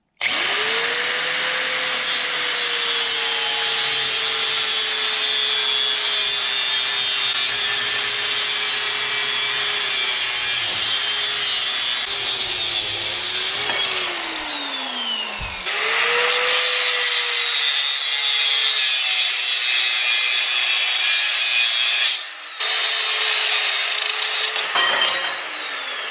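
Handheld DeWalt angle grinder with a cut-off wheel cutting perforated steel angle, making two cuts. Each cut starts with the motor whining up to speed, runs under the grinding of wheel on steel, and ends with the whine falling away as the wheel spins down: once around the middle and again near the end.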